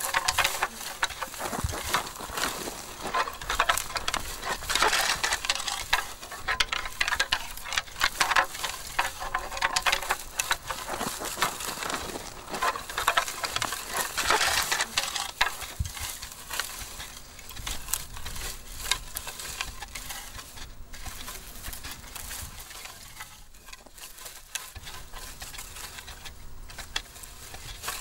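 Two red deer stags fighting with antlers locked: a dense crackle of clicking antler clashes and trampled, rustling scrub, busiest for the first half and thinning out after about sixteen seconds.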